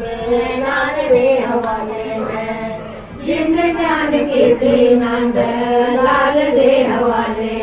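Women's voices singing a song together in chorus, with long held notes and a brief break about three seconds in.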